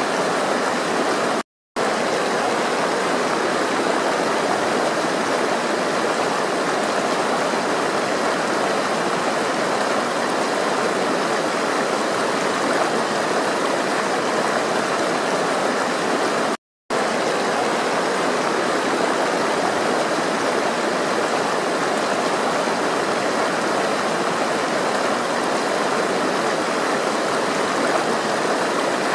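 Flowing water rushing steadily, a continuous even splashing of a stream. It cuts out to silence twice for a split second, about a second and a half in and again about sixteen seconds in.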